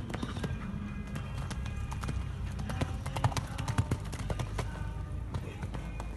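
Hoofbeats of a show-jumping horse cantering on sand footing after a fence, with music playing.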